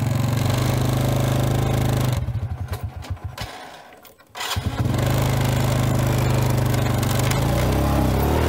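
A small engine running. About two seconds in it slows in uneven pulses and nearly dies, then picks up again about four and a half seconds in and runs steadily.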